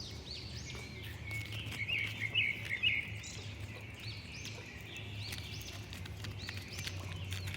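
Small birds chirping: many short arched chirps repeating, with a louder cluster about two to three seconds in, over a low steady hum.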